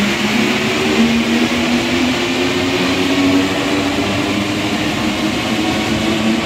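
Paris Métro MP89CC rubber-tyred train pulling out of the station and running past, a steady rolling hiss under a motor hum that rises gently in pitch as it gathers speed.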